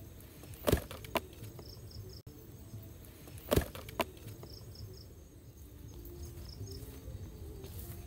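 Crickets chirping faintly in quick groups of three, over a low outdoor rumble. Two sharp knocks stand out, about a second in and again about three and a half seconds in, each followed by a fainter click.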